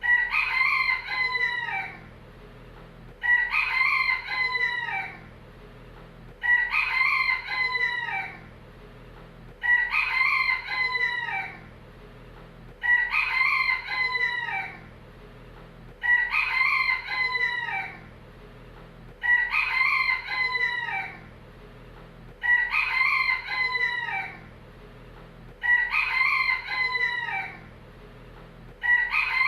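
Rooster crowing over and over, one crow about every three seconds, each crow about two seconds long and each alike.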